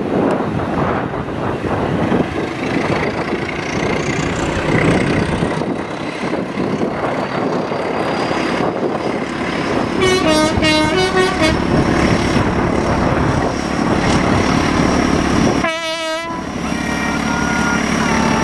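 BR Class 14 diesel-hydraulic locomotive D9539 working hard as it hauls a train past, its diesel engine making a racket. A horn toots twice, about ten and sixteen seconds in.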